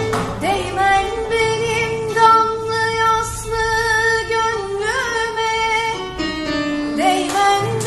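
A young female voice singing a slow solo melody, holding long notes with vibrato and gliding between them, over a steady low accompaniment.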